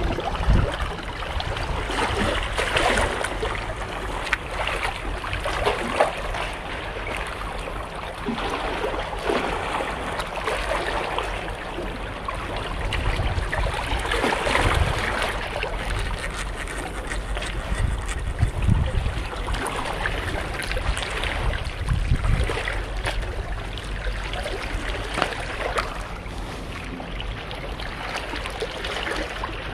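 Seawater sloshing and lapping among concrete tetrapods, with wind gusting on the microphone.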